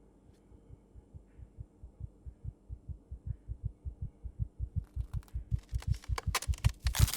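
Low, heartbeat-like thumping in a film soundtrack, about four pulses a second, fading in from near silence and growing steadily louder. Sharp high clicks join about five seconds in.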